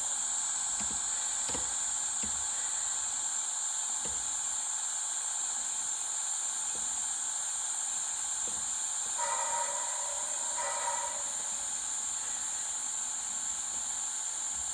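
Model steam locomotive sound decoder playing a steady steam hiss, with faint clicks and two short whistle toots about nine and ten and a half seconds in.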